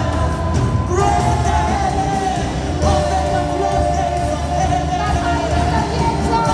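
Live worship music: a male and a female vocalist singing into microphones over a full band, with long held sung notes.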